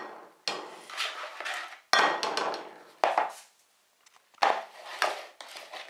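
Flexible spatula scraping meringue out of a plastic mixing bowl and knocking against it, about five strokes, each starting sharply and fading.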